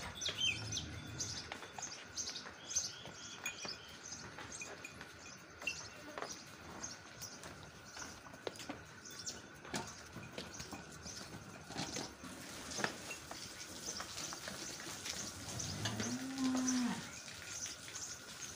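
Dairy cattle mooing once near the end: a single low call about a second long that rises and then falls in pitch. Small birds chirp throughout.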